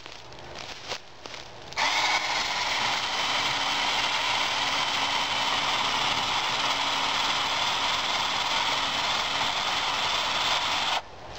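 Ryobi P545 18-volt cordless electric chainsaw starting up about two seconds in, its motor spinning up and then running steadily as the chain cuts through a small oak trunk. It stops near the end.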